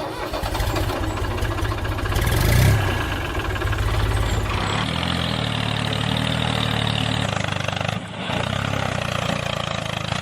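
Mini tractor engine running with a rapid, even chug. Its tone shifts to a higher, smoother run about halfway through.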